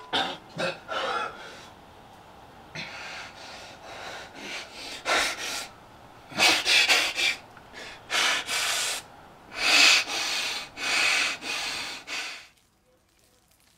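A man breathing heavily, rough unpitched breaths in and out roughly once a second, strongest in the second half, then stopping about a second before the end.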